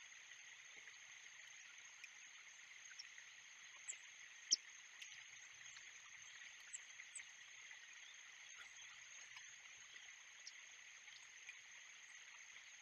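Faint outdoor ambience from a nest camera: a steady, high-pitched drone over a soft hiss, with scattered faint clicks and one sharp click about four and a half seconds in.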